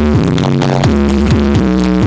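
Electronic dance music played very loud through a large carnival sound system, with a heavy steady bass and repeated falling bass sweeps, about two to three a second.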